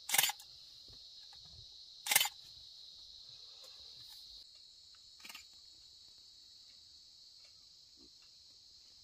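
Steady high-pitched buzzing chorus of insects, a little quieter about halfway through. Two loud sharp clicks about two seconds apart near the start, and a fainter click later.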